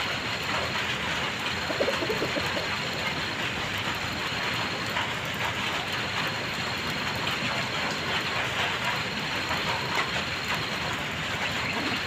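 Light drizzle falling steadily, an even patter of many fine raindrops.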